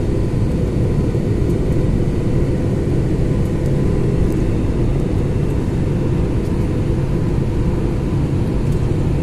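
Cabin noise inside an IndiGo Airbus A320-family jet airliner descending to land: the turbofan engines and the air over the fuselage make a loud, steady rumble, with a faint steady whine above it.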